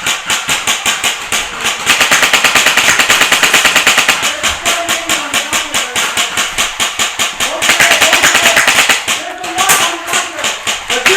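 Airsoft rifle firing sustained full-auto, a rapid run of sharp clacks. It is most likely the player's Polarstar air-powered ICS L86 at close range. The fire breaks briefly about eight seconds in, then resumes.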